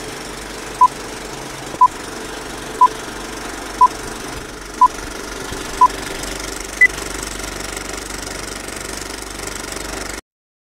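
Old film projector running with a steady clatter, over which six short beeps sound a second apart, followed by one higher-pitched beep like the end of a countdown. All sound cuts off suddenly near the end.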